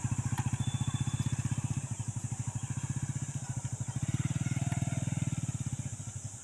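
Single-cylinder commuter motorcycle engine running at low revs with an even chugging exhaust, fading as the bike moves slowly away over rough ground.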